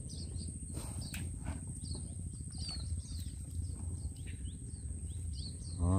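Mangrove ambience: small birds chirping in short, quick calls over a steady high insect whine, with a low rumble underneath. A few light knocks about a second in come from the gill net being handled in the wooden boat.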